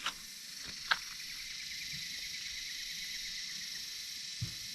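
Steady high-pitched insect chorus, crickets or similar, with a faint rapid ticking trill in the middle. Two sharp knocks come in the first second, the second one the loudest sound, and a soft low thump comes near the end.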